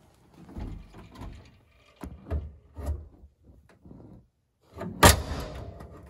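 1990 Chevrolet Camaro hood being lowered, with a few soft knocks as it is handled, then slammed shut about five seconds in with one loud metallic bang, latching on the first click.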